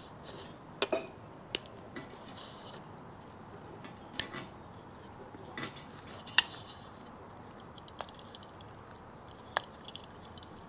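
Scattered light clicks and taps from small parts being handled: a rubber wire-loom grommet being worked into a painted motorcycle headlight shell and the shell being turned on a towel-covered bench.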